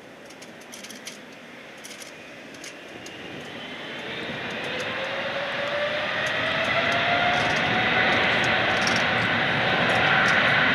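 Boeing 777's GE-90 turbofan engines spooling up to takeoff thrust at the start of the takeoff roll: a whine that climbs in pitch as if going up a musical scale, over a rushing engine noise that grows steadily louder through the second half.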